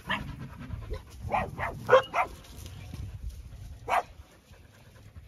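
A dog barking in short yips: one at the start, a quick run of four about one to two seconds in, and one more about four seconds in.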